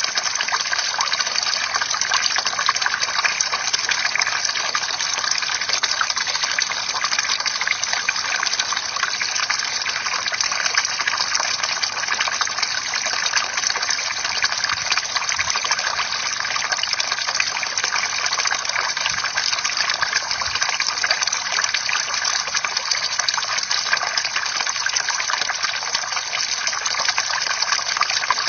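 Bamboo water fountain: water pouring steadily from the spout and splashing continuously into the water below.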